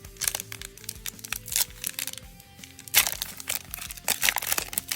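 Background music of slow held notes, over the crinkling and crackling of foil booster-pack wrappers being handled, loudest about three seconds in.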